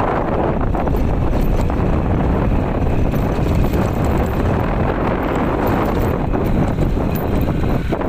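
Wind buffeting the microphone: a loud, steady rumbling noise with no clear rhythm or tone.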